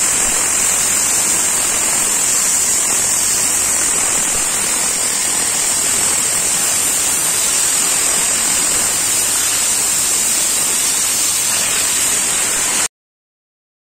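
Compressed-air cleaning gun with a solution bottle, blowing a steady, loud hissing jet of air and cleaner into a carpet floor mat. It cuts off suddenly about a second before the end.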